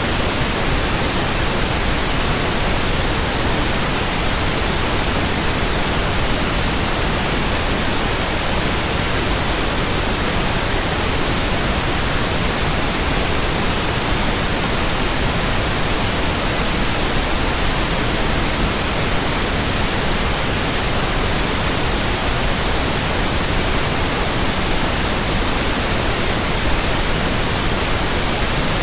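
Steady, unvarying white noise: an even hiss spread across all pitches, with no rhythm or tones in it.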